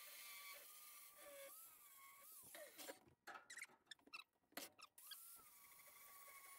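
An angle grinder whining faintly as it grinds 2-inch steel box tubing, its pitch wavering under load; about two and a half seconds in it winds down with a falling pitch. A few short knocks and clatters follow as the tube is handled, then the grinder spins back up with a rising whine near the end and grinds on.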